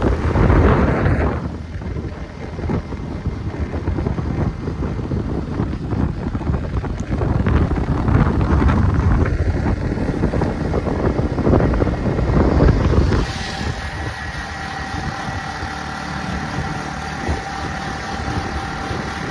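Wind and road noise from riding in a moving vehicle, a rumbling rush that swells and falls. About two-thirds of the way through it changes to a steadier, quieter hum with a few held tones.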